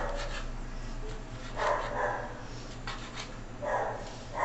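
A dog barking in short bursts, about halfway through and again near the end, over light taps of a knife cutting sausage on a cutting board.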